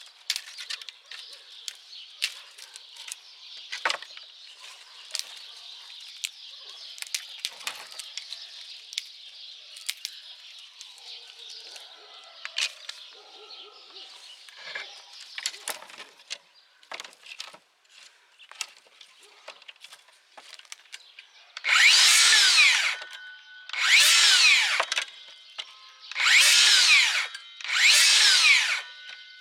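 Dry tree branches rustling and clicking as they are handled and laid on a wooden table. Then a DeWalt 60V FlexVolt DCS578 cordless circular saw makes four short cuts through thin branches, each a little over a second long. The saw spins up, cuts and stops quickly with its electric brake.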